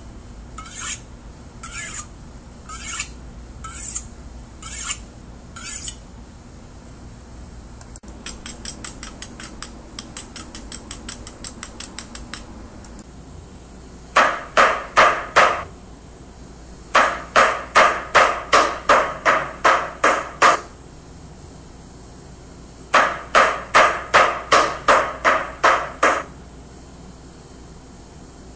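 A chef's knife drawn along a honing steel, one scrape about every two-thirds of a second, followed by a quicker run of faint ticks. From about fourteen seconds in, a metal meat mallet pounds meat on a wooden cutting board in three bursts of sharp blows, about three a second.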